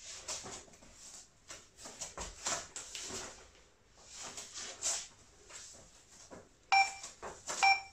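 Soft scattered rustling from someone moving through a floor exercise, then two short electronic timer beeps about a second apart near the end, the countdown to the end of the work interval.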